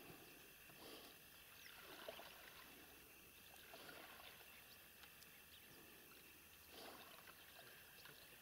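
Faint, soft swishes and splashes of a paddle dipping into calm water as an inflatable rubber boat is paddled, several strokes spaced irregularly.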